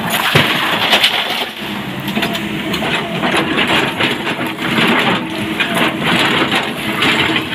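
Broken quarry stone crunching and clattering under an excavator bucket, over the steady running of the SANY excavator's diesel engine. The clatter is heaviest in the first second or so and then comes in uneven rattles.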